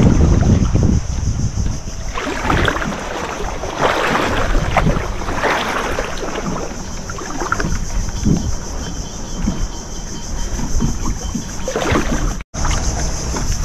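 Wind buffeting the microphone aboard a small boat on open water, with rushing washes of noise and a steady high hiss. The sound cuts out for a moment near the end.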